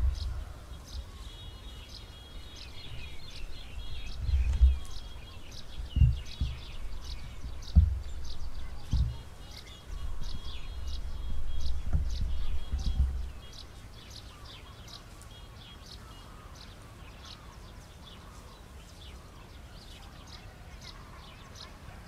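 A perched flock of small birds chirping and twittering, many short calls overlapping. A gusty low rumble with a few thumps is louder still over the first half and drops away about 13 seconds in.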